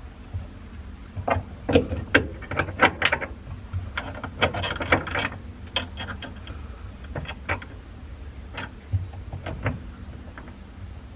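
Light metal clicks and clinks of small hardware being handled and fitted onto a steel car hood latch: a dense run of clicks through the first several seconds, then a few scattered ones.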